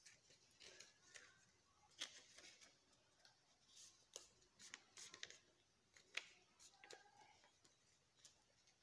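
Faint crisp crackles and rustles of a sheet of paper being handled and folded into a paper airplane, in irregular snaps of a few a second.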